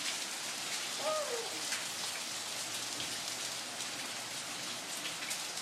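Steady rain falling, an even hiss with scattered drops pattering on surfaces. A brief faint voice-like sound rises and falls about a second in.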